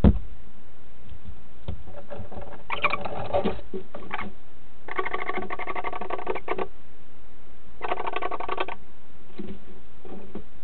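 Barn owls calling in a wooden nest box: four bursts of rapid, pulsed, buzzy calls, each half a second to a second and a half long, at the handover of a mouse as a courtship gift. A knock at the very start, and a steady hiss throughout.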